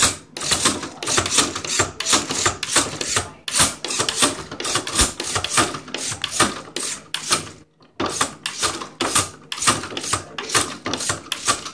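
Plastic lever of a Fantastic Gymnastics toy being pressed over and over, clacking about four times a second as the gymnast figure swings on its bar, with a short break about eight seconds in.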